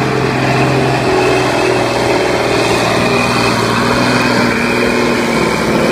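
DAF log truck's diesel engine running steadily as the truck drives laden with logs across loose dirt, its pitch holding steady.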